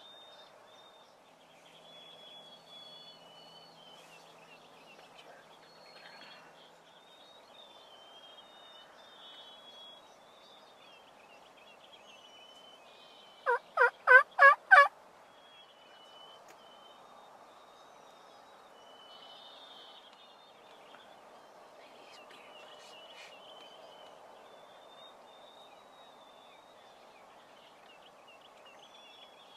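Wild turkey gobbling once about halfway through: a loud, rapid rattling call of about five quick pulses, lasting under two seconds.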